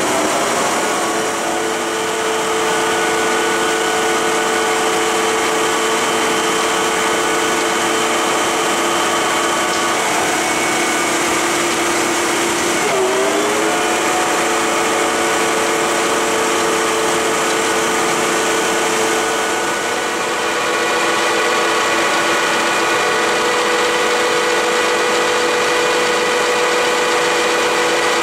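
1969 Lucas 441B-72 horizontal boring mill running under power, its table traversing along the ways: a steady mechanical whine of drive motor and gearing with several held tones. The pitch sags and recovers briefly about 13 seconds in, and the sound grows slightly louder and higher around 20 seconds in.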